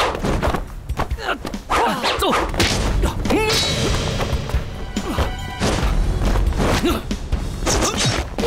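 Staged fight sound effects: a rapid string of punches, blows and thuds, with shouts and grunts from the fighters, over dramatic action music.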